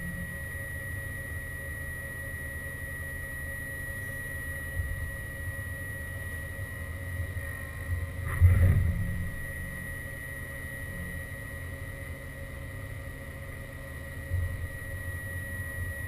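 Haas VF2 CNC vertical mill running: a steady high whine over a low hum, with a louder swell of machine noise about eight and a half seconds in and a smaller one near the end.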